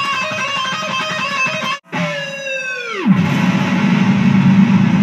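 Gibson Les Paul electric guitar being played: sustained notes that waver with vibrato, a brief break about two seconds in, then a held note that slides steeply down in pitch around three seconds in and gives way to a low, noisy held sound.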